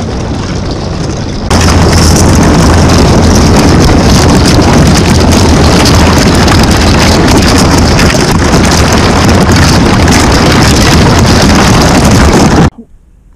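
Motorboat running through thin skim ice: a loud, steady noise of the hull breaking and scraping through the ice over the motor. It gets louder about a second and a half in and cuts off abruptly shortly before the end.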